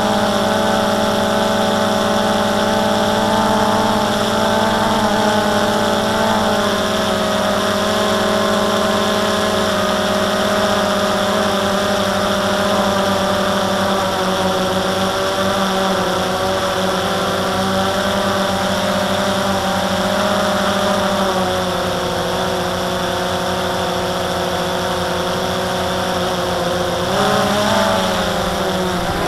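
DJI Phantom 2 quadcopter's motors and propellers whining steadily, loud and close, as picked up by the camera mounted on the drone. The pitch of the whine jumps and wavers briefly near the end.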